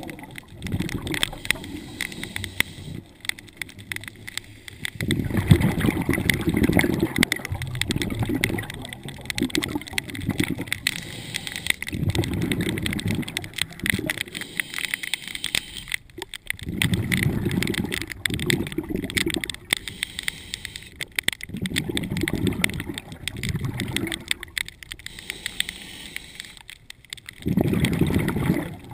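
Scuba diver breathing underwater through a regulator, heard through the camera's housing: bursts of exhaled bubbles rumbling every four to five seconds, with a faint hiss between them.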